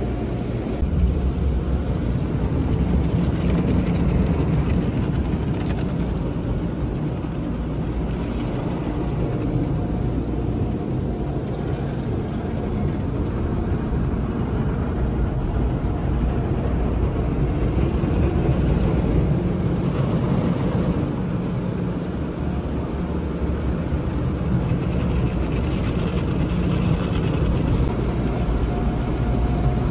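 Automatic car wash working over the car, heard from inside the cabin: a steady low rumble of water spray and washing gear against the body and glass, swelling and easing every few seconds.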